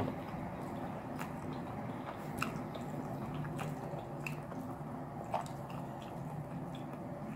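A person chewing food close to the microphone, with scattered small wet clicks of the mouth, over a steady low background hum.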